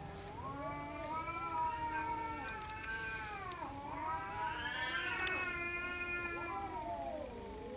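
Two domestic cats caterwauling at each other in a fight standoff: long, drawn-out yowls that waver up and down in pitch. The yowling dips and breaks briefly about halfway, then swells again.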